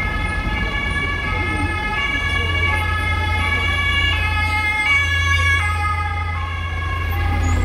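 German two-tone emergency siren (Martinshorn) sounding, switching back and forth between two pitches about twice a second. A vehicle engine rumbles close by, stronger from about two seconds in.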